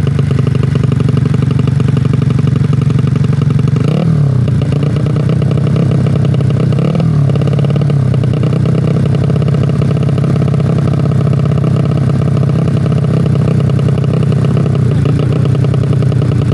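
130cc four-stroke road-race-spec motorcycle engine idling steadily and loudly, blipped twice with short throttle rises, about four and seven seconds in.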